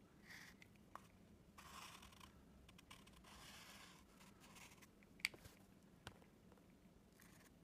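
Faint scratchy strokes of a Posca paint marker's felt tip drawing lines on kraft paper, in several short bursts, with a sharp tick about five seconds in and a softer one about a second later.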